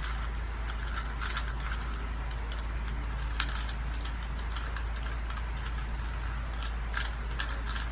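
Rubik's cube being turned quickly by hand: plastic layers clicking and rattling at irregular moments, over a steady low hum.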